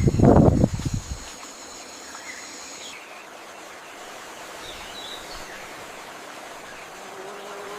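Steady rushing noise like a stream, with faint bird chirps and a thin high insect buzz that stops about three seconds in. A loud, rough burst in the first second stands out above it.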